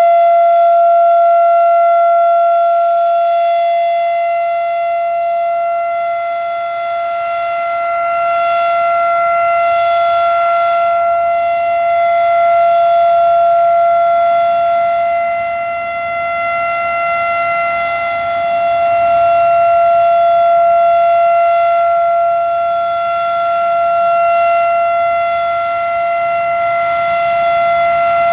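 Federal Signal Thunderbeam RSH-10 rotating siren sounding its steady Alert tone at one held pitch. The loudness swells and fades about every seven seconds as the horn turns toward and away.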